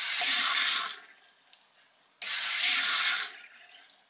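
Water from a kitchen tap fitted with a Zanjia induction sensor attachment running in two short spells of about a second each: the flow switches on suddenly as a hand passes under the sensor and stops again shortly after.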